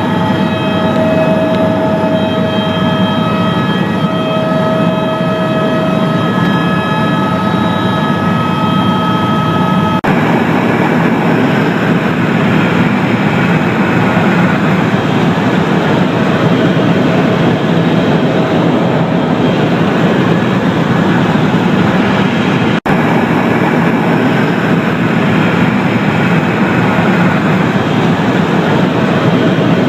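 Helicopter in flight, heard from inside the cabin: a loud, steady drone of rotor and engine. For the first ten seconds several steady whining tones ride on top. The sound jumps abruptly at about ten seconds in and cuts out for an instant at about twenty-three seconds.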